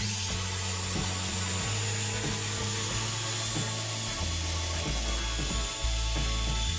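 Electric jigsaw sawing through a pine board, a steady noise that starts and stops abruptly, with background music underneath.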